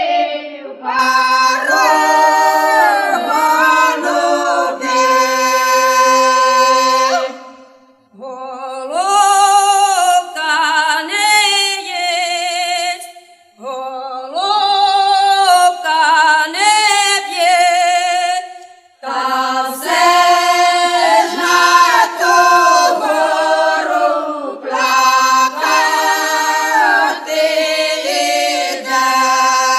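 Background music of unaccompanied choral singing: several voices in harmony with no instruments or bass, broken by three short pauses between phrases.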